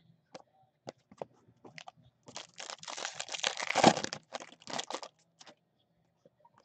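Foil trading-card pack wrapper crinkling as a pack is opened, for about two seconds starting about two seconds in, with a few more crinkles after. Light clicks of cards being flipped come before and after it.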